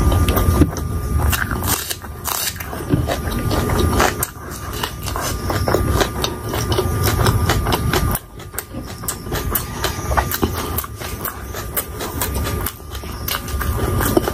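Close-miked chewing of fried pakoda and green chilli with the mouth closed: a dense run of small crunching clicks, briefly quieter about eight seconds in.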